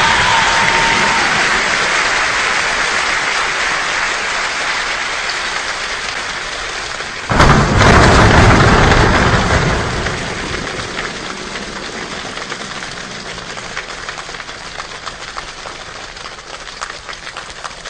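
Heavy rain falling, slowly easing off. About seven seconds in, a sudden thunderclap cracks and rumbles for a couple of seconds. Toward the end, single drops can be heard ticking as the rain grows lighter.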